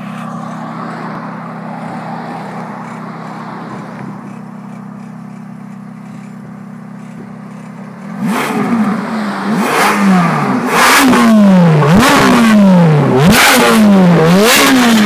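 Ferrari F430's flat-plane V8 idling steadily, then, about eight seconds in, revved hard several times in quick succession toward redline, each rev rising and falling sharply, much louder than the idle.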